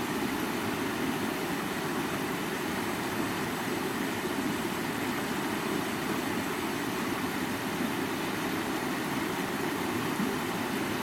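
River water flowing, a steady rushing noise with no change in level.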